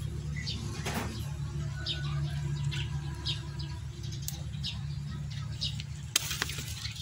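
Small birds chirping, short high calls repeating every second or so, over a steady low hum, with a couple of sharp clicks about a second in and near the end.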